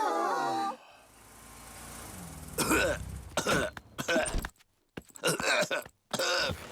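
A man's voice coughing in about five short bursts: a cartoon character's performed cough, a sign that he is ill. A short falling glide of tones opens it.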